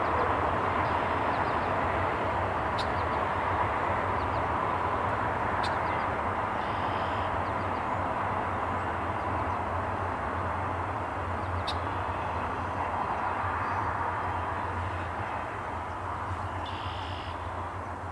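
Double-stack container freight cars rolling past at a distance: a steady rumble of steel wheels on rail that slowly fades as the tail of the train goes by.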